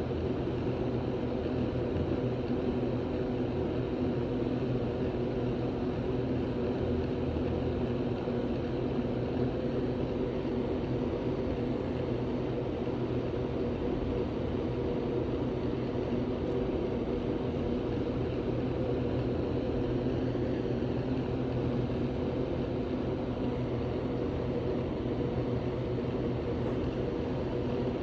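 A steady mechanical drone with a low hum made of several steady tones, unchanging throughout, with no separate sounds standing out.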